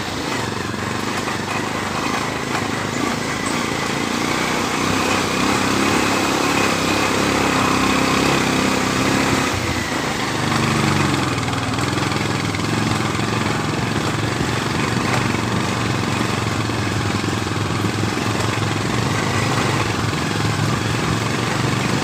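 Motorcycle engine running as it rides downhill on a rough dirt ghat road, under a steady rushing noise; the engine note bends up and down about halfway through.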